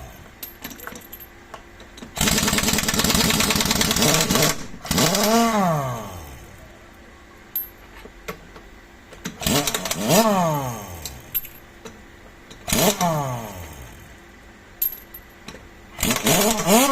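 Pneumatic impact wrench hammering for about two seconds, then spun up in four short trigger pulls, each a whine that rises and winds back down in pitch.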